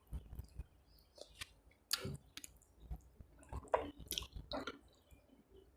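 A person chewing a mouthful of rice and curry, with irregular wet mouth clicks and smacks.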